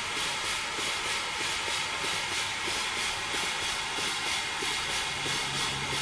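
Stuart Turner 7A model steam engine running steadily on low-pressure compressed air: an even, rapid beat of exhaust puffs over a constant hiss. A low steady hum joins about five seconds in.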